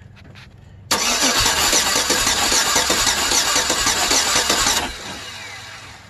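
GM 5.3 V8 cranked over on its starter for about four seconds, starting sharply about a second in and cutting off abruptly, without firing. It is being turned over to check that the rocker arm on the newly replaced AFM lifter now opens its valve fully.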